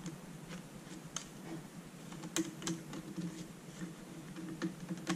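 Faint, scattered clicks and taps of fingers handling an LCD panel's plastic frame while seating the glass inside it, a few sharp clicks, two of them close together near the middle.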